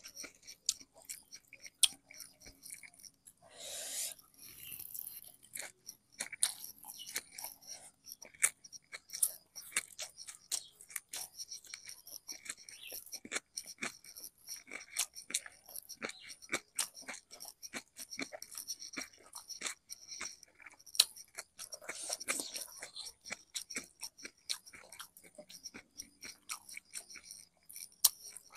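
A person chewing and crunching food close to the microphone, with many small sharp crunches and mouth clicks, and a short rushing noise about four seconds in.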